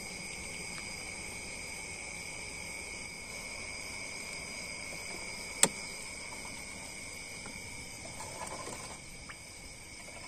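Steady night chorus of crickets and other insects, a continuous chirring at several pitches. A single sharp click cuts through about halfway, and there is a faint rustle near the end.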